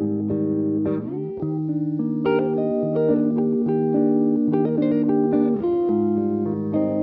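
Background music: an instrumental passage led by guitar, with no singing. The chords change about a second in and again near five and a half seconds.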